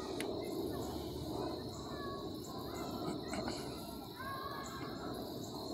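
Outdoor ambience: a steady high insect buzz under a low rumble of background noise, with a few short chirping calls now and then.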